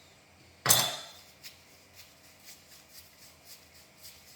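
Cutting dough on a kitchen bench: one sharp knock of a blade hitting the bench as the log of dough is cut in half, then light taps about twice a second.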